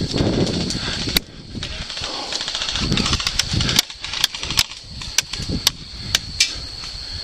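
Scattered airsoft gunfire: single sharp cracks at irregular intervals, a dozen or so over several seconds, over a low rumble.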